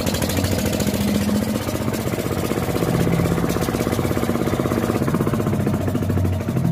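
Petter diesel engine running steadily with an even, rapid firing beat, driving a belt-driven water pump that has not yet drawn water.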